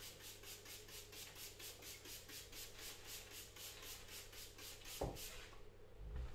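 Trigger spray bottle squirting water in quick regular squirts, about four a second, stopping about five and a half seconds in. A single knock about five seconds in.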